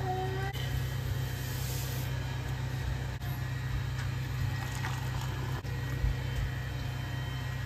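Steady low machine hum with no clear events.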